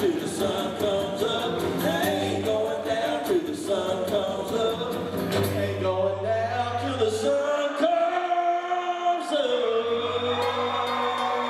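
Live country music: acoustic guitars strumming with several voices singing. The low accompaniment drops out briefly in the middle while the singing holds a note, then comes back in.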